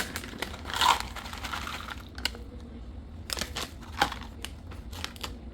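Almonds being handled into a plastic storage container: plastic packaging crinkling about a second in, with scattered light clicks and taps of nuts and plastic, over a steady low hum.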